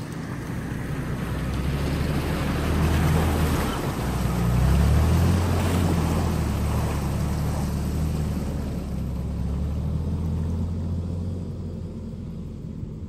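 Toyota Tacoma pickup driving through a shallow creek: engine running at low speed while water splashes and sloshes around the tyres. It grows louder as the truck passes, is loudest about four to five seconds in, then fades as it drives away.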